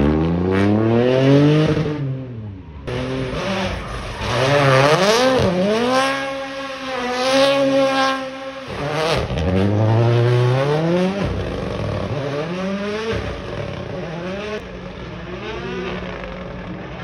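Rally car engines revving hard and dropping back again and again as the cars drift, with some tyre squeal. The sound comes in several short clips from different cars, with sudden breaks between them.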